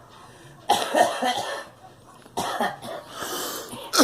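A girl coughing in several short fits, with brief pauses between them.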